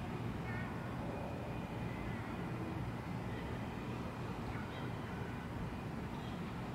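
Steady low outdoor background rumble, like distant traffic, with a few faint short chirps.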